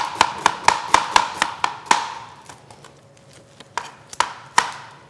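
Kitchen knife slicing an onion on a cutting board: a quick run of strokes, about four a second, for the first two seconds, then a pause and three more strokes near the end.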